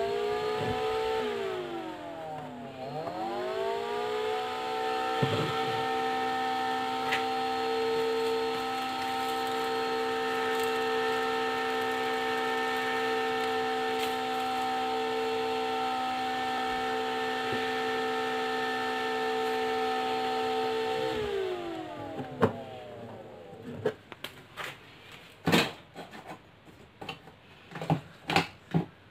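Small 12 V, 9 cm DC cooling fan spinning up with a rising whine, dipping and recovering about two seconds in, then running at a steady pitch until it winds down with a falling whine near the end. A run of sharp clicks and knocks follows.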